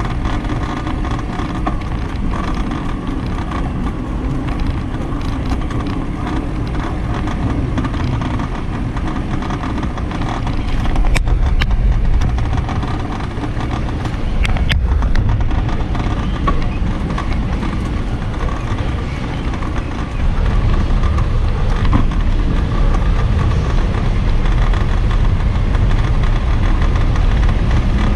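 Steady wind rumble on an action camera's microphone as the bicycle rides along, surging in places, with a couple of sharp clicks around the middle.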